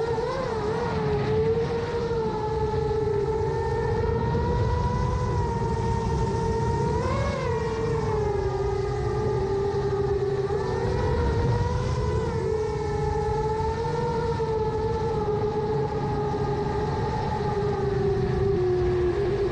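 7-inch FPV quadcopter's 2806-class brushless motors and propellers whining in flight, the pitch wavering up and down with throttle changes, over a low rushing of prop wash and wind.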